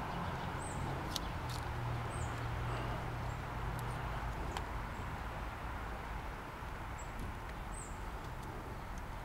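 Outdoor background: a small bird chirping now and then, short high chirps every few seconds, over a steady low hum. A few light clicks come from tools and a camera being handled on a wooden bench.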